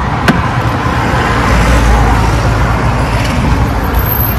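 Road traffic noise: a steady low rumble of motor vehicles that swells about a second and a half in, with one sharp click near the start.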